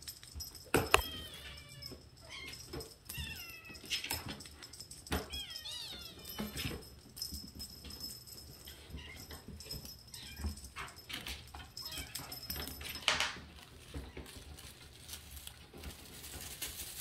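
Young Siamese kitten meowing in short, high calls that bend in pitch, in two clusters: about a second in and again around six seconds. Scattered light knocks and taps from the kitten batting a wand toy, with sharper knocks about a second in and near thirteen seconds.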